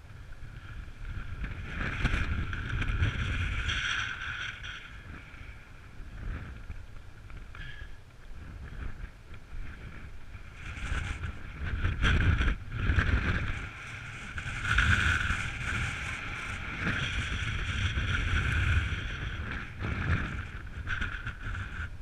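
Electric mountain bike rolling down a grassy, stony slope: tyres and frame rumble unevenly, with wind buffeting the microphone. A steady high whir from the bike swells louder about two seconds in and again from about ten seconds in.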